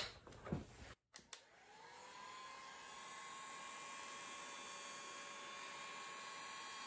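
Electric heat gun switched on after a click about a second in: its fan spins up with a rising whine, then runs with a steady blowing hiss and a high whine as it heats the canoe's seams to soften old sealant.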